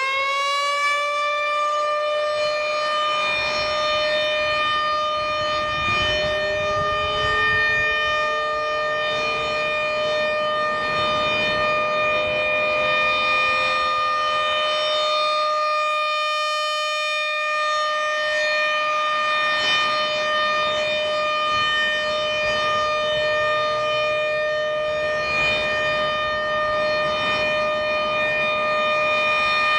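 American Signal Corporation RM-130 rotating outdoor warning siren sounding the alert signal. It finishes winding up about a second in, then holds one steady, loud wail, fading slightly for a moment about halfway through as the rotating head turns away.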